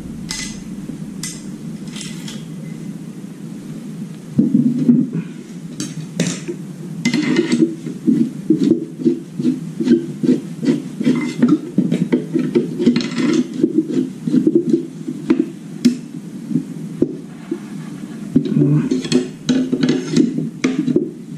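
Hands working with small parts and tools on a wooden desk, over a steady low hum. About four seconds in, repeated scraping and rubbing begins, with scattered clicks and light knocks.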